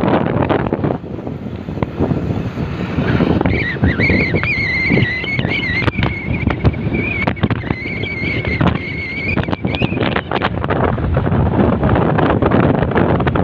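Wind buffeting the microphone over the road noise of a moving vehicle. From about three and a half seconds in until about ten seconds, a thin, wavering high-pitched whine runs over it.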